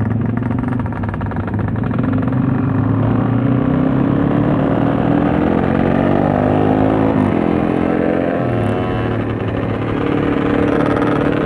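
Motorcycle engine running under way, its pitch rising steadily as it accelerates, then falling sharply about seven seconds in and running steadier afterwards.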